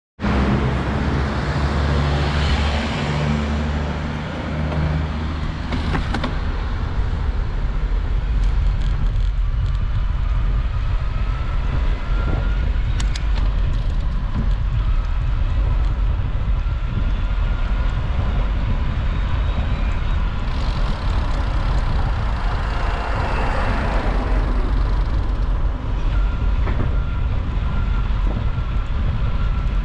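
Steady low rumble of wind and road noise on a moving action camera's microphone. A faint high whine comes and goes, rising slowly in pitch.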